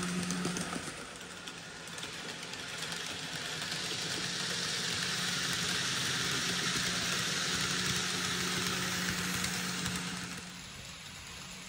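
N-scale model train, an Arnold class 211 electric locomotive with LOWA coaches, running on the layout track: a steady motor hum under the rolling hiss and rattle of wheels on the rails. It swells as the coaches pass close and falls off about ten seconds in as the train leaves.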